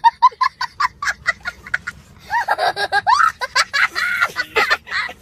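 High-pitched giggling laughter: a quick run of short, rapid bursts, then longer squealing, wavering laughs from about two seconds in.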